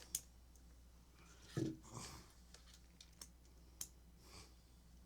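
Sparse small clicks and taps of parts being handled during a speaker teardown, with a louder short knock about a second and a half in.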